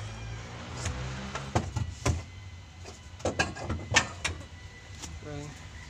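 Irregular clicks and knocks of hand tools and metal parts being handled around the steering column of a Mitsubishi L300, over a steady low hum.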